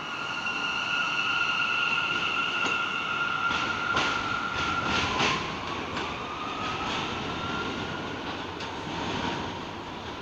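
New York City Subway train pulling out of the station and accelerating away. Its electric motors whine at a steady pitch, then about halfway the whine drops and climbs again as the train gathers speed. The wheels click over the rail joints in the middle, and the sound fades as the train recedes.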